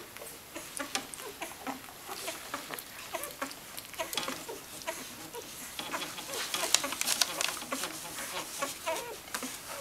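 Newborn Welsh Springer Spaniel puppies nursing: a continuous run of small squeaks and grunts mixed with quick sucking clicks, busiest in the second half.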